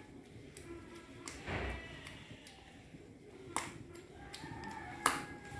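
A stick stirring thick liquid soap in a plastic basin: a few sharp taps as it knocks against the side, with a short slosh about a second and a half in.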